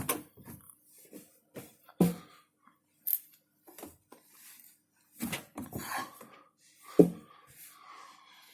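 Dark clothes being handled and loaded into a front-loading washing machine drum: rustling fabric with irregular knocks and clicks, the loudest about two seconds in and again about seven seconds in.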